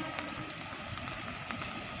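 Express train hauled by a WAP7 electric locomotive running past at speed, a steady rumble and hiss with a few faint clicks from the wheels, in the gap between two horn blasts; the tail of the first blast dies away right at the start.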